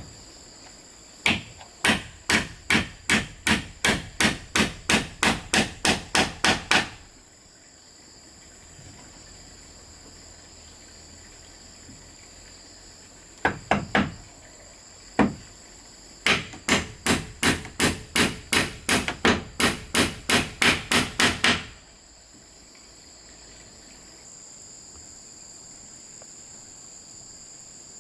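Two runs of quick, evenly spaced strikes of a hand tool on wood or bamboo, about three blows a second, with a few single blows between the runs. Insects chirr steadily throughout.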